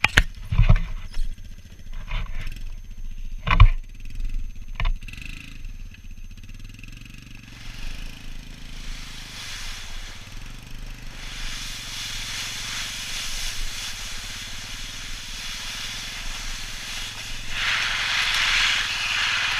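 A few knocks of the camera being handled close to the microphone, over the steady low hum of a towing vehicle's engine. Then the sled is pulled along over snow and pavement, and a rushing noise of sliding and wind builds, growing louder near the end.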